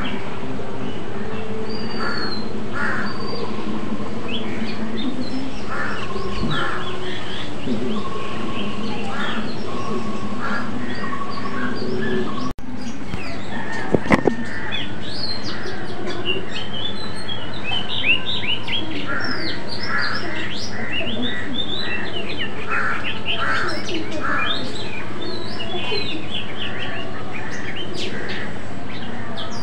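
Birds chirping and calling, many short high chirps and quick sweeps overlapping, busiest in the second half. The sound cuts out for an instant about twelve seconds in.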